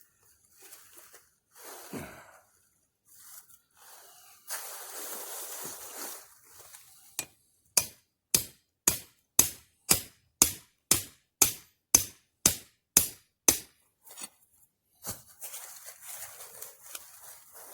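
Hammer blows driving the ground anchor of a dog-proof raccoon trap into the soil: about a dozen sharp strikes, roughly two a second, starting about halfway through. Before them, rustling and handling noise.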